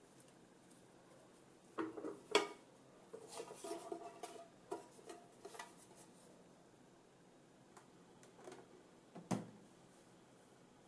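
Metal bread-maker pan being handled: a couple of knocks about two seconds in, a run of light clinks and rattles over the next few seconds as the braided dough is set into it, and one sharper knock near the end.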